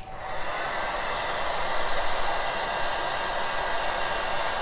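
Handheld hair dryer switched on and spinning up over the first half second, then blowing steadily as it dries freshly glued patterned paper.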